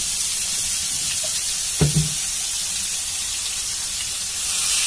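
Wet spice paste sizzling in hot oil in a kadhai, a steady hiss. A brief knock comes about two seconds in, and the sizzle grows louder right at the end as more water from the bowl goes in.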